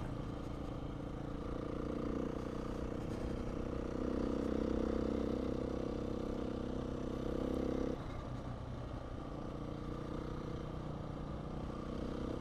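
Beta 500 RR-S dual-sport motorcycle's single-cylinder four-stroke engine running while riding. The engine note grows louder from about two seconds in, then drops off abruptly about eight seconds in.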